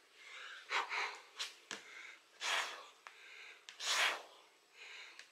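A man breathing hard and fast while doing burpees, with loud, forceful exhalations about every second and a half.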